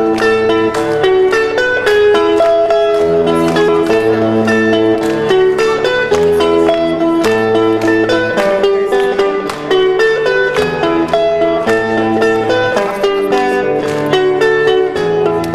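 A rock band playing an instrumental passage live, with no singing: electric guitar over a bass line and a steady beat.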